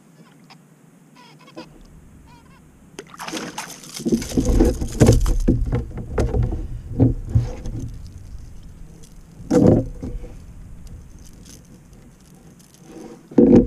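Splashing water and knocks against the kayak, with handling noise close to the microphone, as a hooked fish is brought alongside. There are faint clicks at first, then a loud irregular stretch from about three seconds in, a sharp burst near ten seconds and another at the very end.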